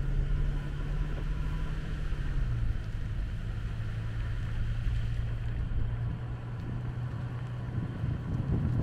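An engine running steadily, its low hum dropping slightly in pitch about two and a half seconds in, over a low rumble.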